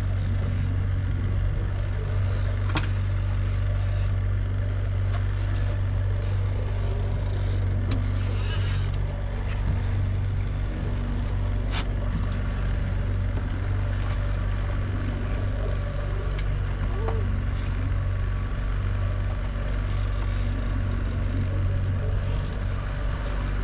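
Boat motor droning steadily, with a fishing reel's drag giving a high whine in short spells as a hooked fish pulls line off.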